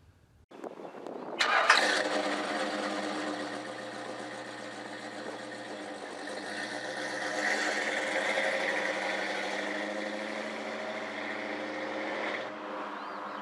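Chevrolet 305 cubic-inch small-block V8 cranking and firing up about a second and a half in, then running steadily; the sound cuts off suddenly near the end.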